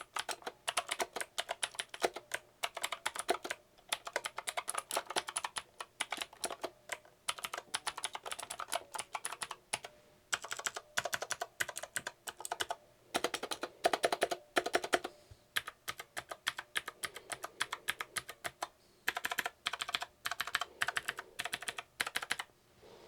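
Typing on a Rii RK908 mechanical keyboard with clicky blue switches: rapid runs of key clicks, broken by a few short pauses.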